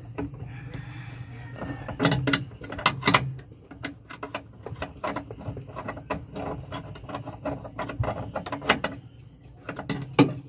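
Wrench and hand tools clicking and clanking on metal while the clutch master cylinder's mounting bolts are fastened. The clicks come irregularly, with louder clanks about two and three seconds in and again near the end.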